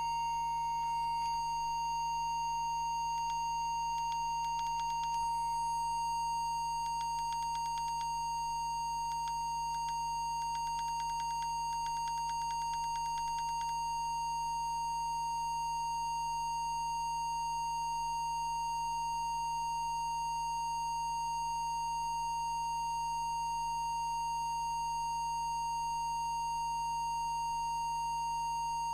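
Steady single test tone from an audio oscillator, used to set the CB transmitter's FM deviation, with faint rapid clicking through the first half as the radio's menu buttons are pressed.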